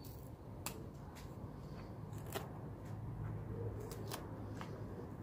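Kitchen knife cutting through a geranium stem to take a cutting: a handful of short, sharp clicks as the blade works through the stem, over a faint low hum.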